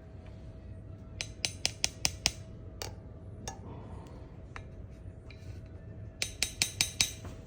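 Light metallic clinks: a quick run of about five, about a second in, a few single clicks, then another run of about six near the end, over a faint steady hum.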